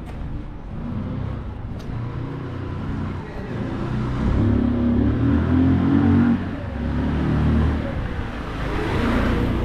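Car engines on a city street: one vehicle pulls away close by, its engine loudest a little after halfway and then easing off suddenly. Another vehicle swells past near the end with tyre and engine noise.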